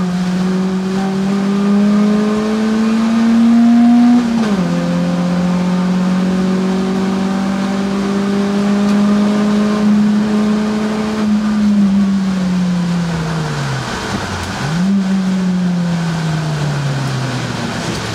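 Peugeot 106 GTI's 1.6-litre 16-valve four-cylinder engine at racing speed, heard from inside the cabin. The revs climb slowly and drop sharply about four seconds in at a gear change, then pull slowly again. From about twelve seconds the revs fall as the car slows, with a quick dip and sharp jump in revs near fifteen seconds, then fall again.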